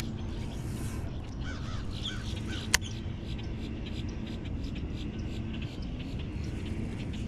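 Birds calling a few times over a steady low rumble, with one sharp click about three seconds in.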